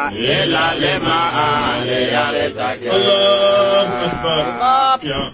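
A man chanting solo into a microphone, holding long notes and sliding between pitches, with short breaths between phrases.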